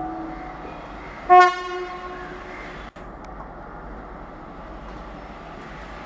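Two coupled Indian Railways WAG-class electric locomotives running light. A horn blast fades out at the start, and a louder horn blast of about a second sounds about a second and a half in. Then the locomotives rumble steadily along the track.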